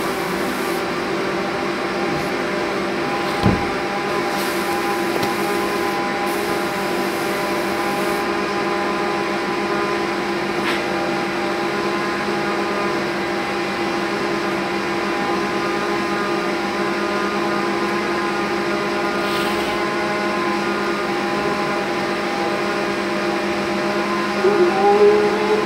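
Steady hum of a running electric motor, several fixed tones held without change, with a short knock about three and a half seconds in.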